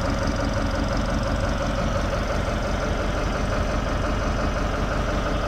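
Volvo Penta marine engine of a Nissan Sunfisher 780 cabin boat idling steadily.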